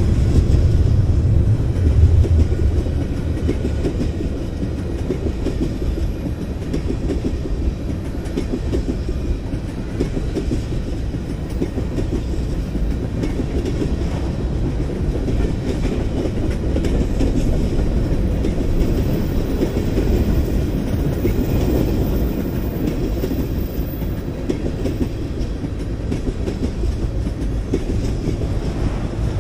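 Freight train cars, tank cars and covered hoppers, rolling past close by: a steady wheel-on-rail rumble full of rapid small knocks from the wheels passing over the track.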